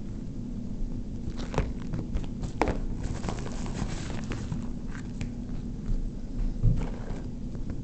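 Handling noise from unboxing a fingerboard: scattered rustles and light clicks, most between about a second and a half and five seconds in, over a steady low hum.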